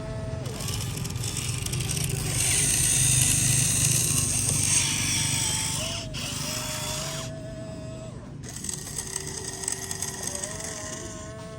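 Small electric motors and gears of radio-controlled construction models whining, their pitch dipping and gliding as they change speed, with a hissing whir that cuts out about seven seconds in and starts again a second later.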